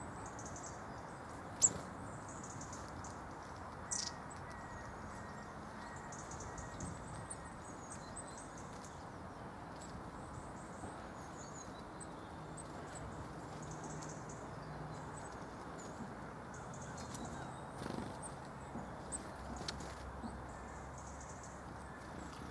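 Tits calling with high, thin chirps at a bird feeder over a steady background hiss. A sharp click about one and a half seconds in and another around four seconds stand out, with a few softer knocks near the end.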